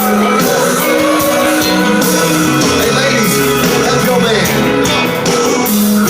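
Christian rock band playing live, with electric guitars, drums and singing over a loud, dense mix.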